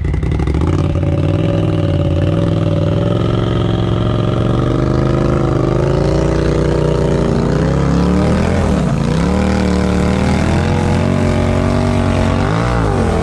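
Polaris off-road vehicle engine running hard under throttle, its pitch wavering and then dropping and climbing sharply twice as the revs fall and rise.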